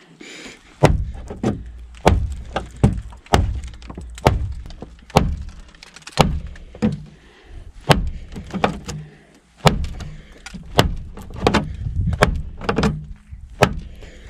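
A Victorinox Venture fixed-blade knife stabbing repeatedly into a car's sheet-metal body, a sharp metallic thunk roughly every second as the blade punches through the panel.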